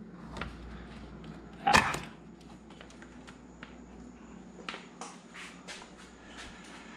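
Plastic intake manifold knocking and clicking against the engine and its hoses as it is worked free and lifted out, with one loud knock just under two seconds in and several lighter clicks later.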